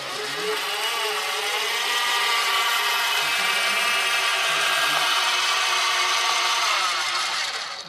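Electric drive motors and gearing of a vehicle-mounted EOD robot manipulator arm whining as the arm moves, a steady whine that wavers slightly in pitch about a second in and stops near the end.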